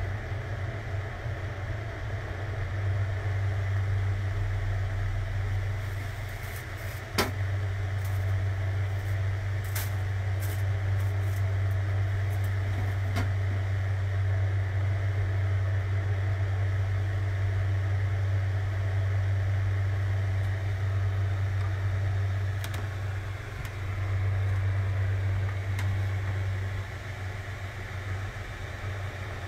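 Steady low electrical hum, with a sharp click about seven seconds in and a few light ticks.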